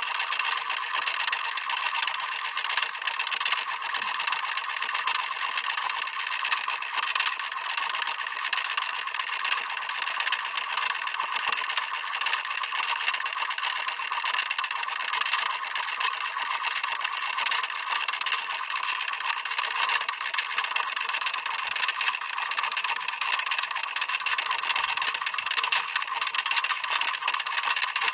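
Clock mechanism ticking rapidly: a dense, even stream of small ticks that runs on without pause.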